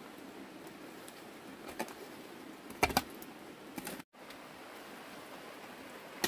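Hand hoe chopping into wet garden soil: a few dull strikes, the loudest two close together about three seconds in, over a steady background hiss.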